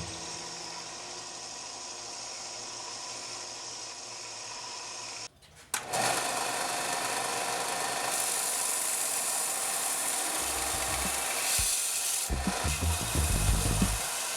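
Steady abrasive hiss of a power tool grinding a steel knife blank. It cuts out briefly about five seconds in and resumes louder, with low thumps near the end.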